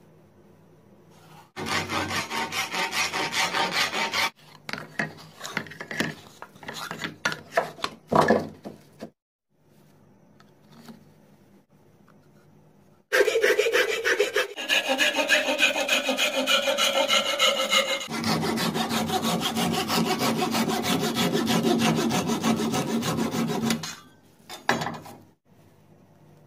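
Rapid back-and-forth strokes of a hand tool working the edge of a thin piece clamped in a bench vise: a few seconds of strokes, then a ragged spell, a pause, and about ten seconds of steady fast strokes from around halfway.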